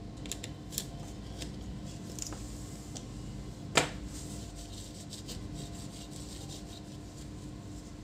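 Small clicks and taps of a laptop motherboard and its charger's barrel plug being handled on a work mat, with one sharper click about four seconds in, over a faint steady hum.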